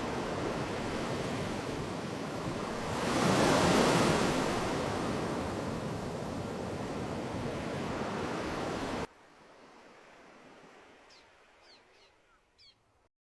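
Hailstorm with heavy rain: a dense, steady rush of hail and rain that swells louder about three to five seconds in. It cuts off abruptly after about nine seconds to a faint hiss with a few short, high chirps.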